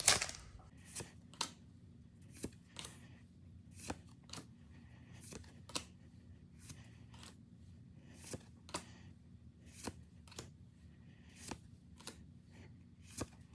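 Pokémon trading cards from a freshly opened booster pack being flipped through one at a time: short card slides and snaps, mostly in pairs about every one and a half seconds, over a faint steady low hum.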